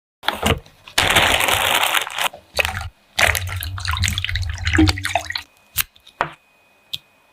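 Kitchen preparation sounds: splashing, running liquid in several loud bursts with short gaps, and scattered knocks and clicks of kitchenware.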